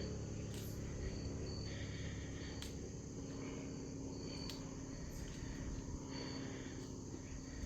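Insects chirping in the woods: a steady high trill with shorter calls repeating every second or two, over a continuous low rumble.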